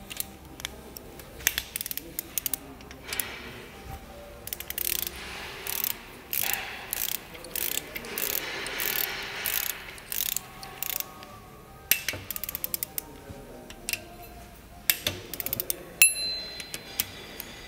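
Socket ratchet wrench clicking in quick runs of pawl clicks as cylinder-head bolts are run down and tightened, during the first tightening stage of the head bolts.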